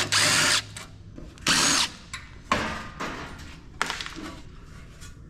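Power drill-driver running in short bursts as it backs screws out of a metal equipment box: one burst stops just after the start, another comes about a second and a half in, and a weaker one follows a second later.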